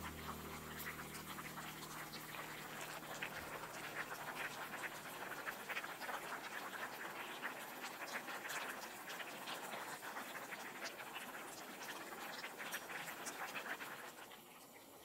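Kelp and vegetable broth boiling hard in an earthenware pot on a portable gas burner: a steady crackle of bubbling, dropping away near the end.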